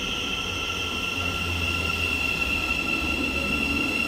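Thameslink Class 700 electric multiple unit rolling slowly along the platform as it comes in to stop, with a steady high-pitched whine over a low rumble.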